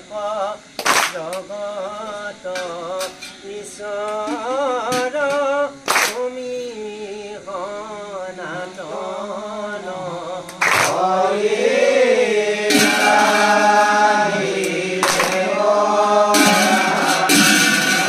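Assamese nam-prasanga devotional singing: a lead voice sings a wavering, ornamented melody, and about eleven seconds in a group of voices joins and the singing gets louder. Sharp strikes sound about every five seconds over the singing.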